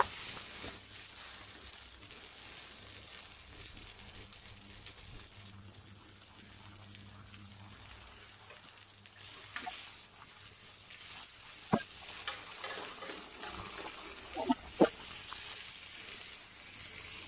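Chicken breast, diced tomatoes and garlic sizzling in butter in a frying pan. In the second half come a few sharp clicks as tongs knock against the pan.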